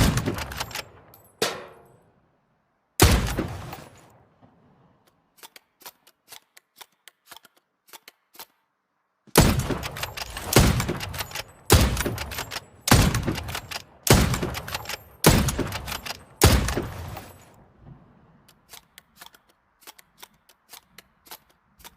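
Hunting rifle gunshots, each with a ringing tail: three shots in the first three seconds, then a string of seven shots about a second apart. Faint clicks and taps fill the pauses between.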